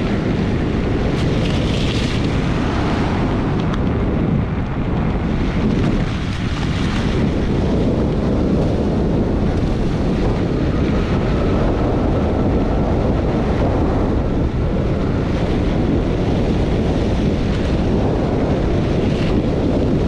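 Steady wind rumbling on the action camera's microphone while riding, with 26x4-inch Maxxis Minion fat tyres rolling over wet, slushy pavement.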